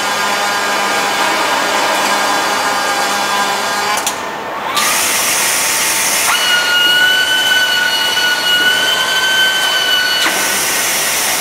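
Robotic welding cell machinery running: a steady hum with a whine of several fixed tones, then a dip and a loud hiss from about five seconds in, with a steady high whistle over the hiss from about six to ten seconds.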